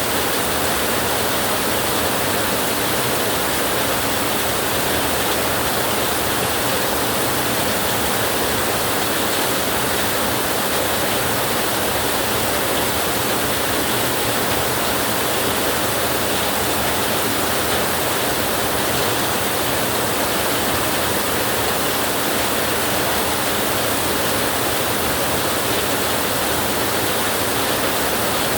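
Heavy rain falling steadily on a tin roof, an even hiss with no thunder.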